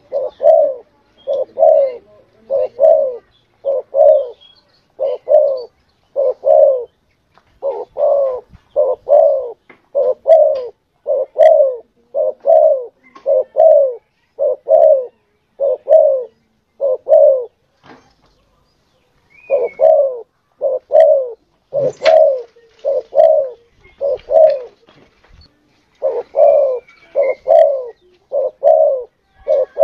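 Spotted dove (tekukur) cooing over and over, a lure call for drawing in wild doves. The low coos come in quick pairs, with a couple of pauses of a second or two, and one sharp click about two-thirds of the way through.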